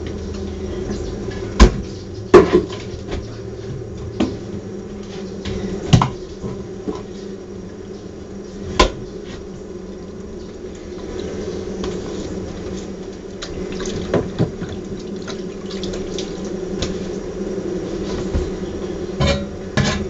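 A honeybee colony buzzing steadily, broken by sharp knocks and clatters of honeycomb and wooden frames being handled. The loudest knocks come about one and a half and two and a half seconds in, with a cluster near the end.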